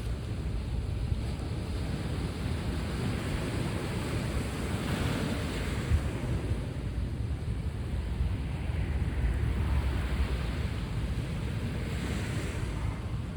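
Sea waves washing onto the shore, with a wave surging in about five seconds in and again near the end. A steady low wind rumble on the microphone runs under it.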